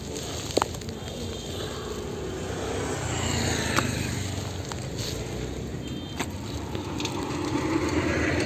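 Street-market background noise: a steady rumble and hiss, swelling slightly about three seconds in, with a few sharp clicks.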